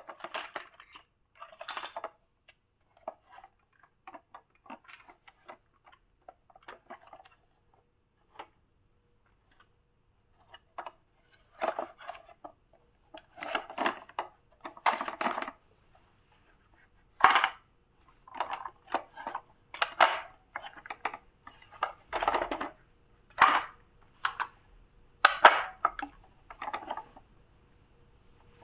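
A hard plastic toy dump truck being handled and turned over a plastic basket of toys, its parts and the basket clattering and knocking in irregular bursts. The rattling is sparse and faint at first and grows louder and busier in the second half.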